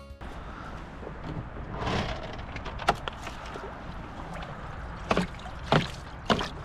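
Rain and wind noise outdoors, with a few sharp knocks and taps about three seconds in and again several times near the end.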